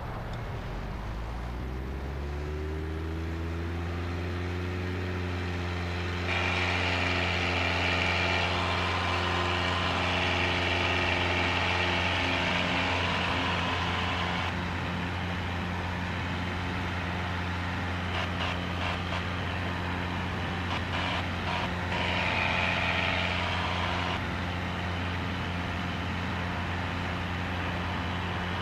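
Cessna 177RG Cardinal's four-cylinder Lycoming IO-360 engine and propeller, rising in pitch over the first few seconds as takeoff power comes in for a touch-and-go, then holding a steady full-power drone through the takeoff roll and climb-out. A louder rushing noise lies over the engine for several seconds midway.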